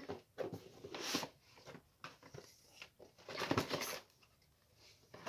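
Handling noises from a doll box: cardboard and plastic packaging rustling and scraping in several short bursts, the longest a little past halfway.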